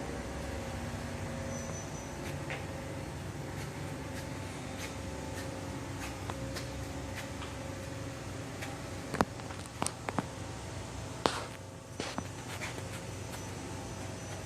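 Steady machine hum, with a handful of sharp clicks or knocks about two thirds of the way through.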